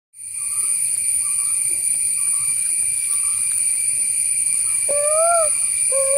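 Steady high-pitched insect drone. About five seconds in come two hooting calls, each rising and then falling, blown through cupped hands in imitation of a bird.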